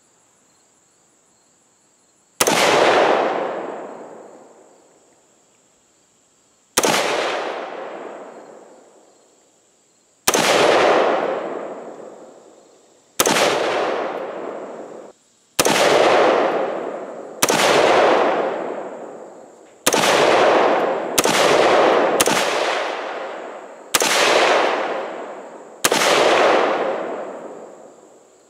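Diamondback AR-15 rifle firing eleven single aimed shots, several seconds apart at first and coming quicker toward the end; each report's echo dies away over about two seconds.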